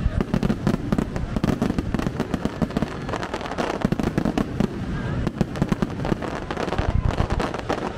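Aerial firework shells bursting in quick succession: a dense crackle of many sharp pops a second over deep booms.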